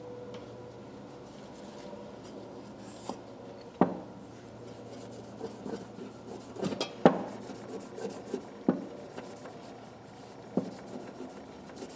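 A cloth rubbing polish onto a green plastic screwdriver handle, with several sharp clicks and knocks as the tools are handled on the bench. The loudest knock comes about seven seconds in.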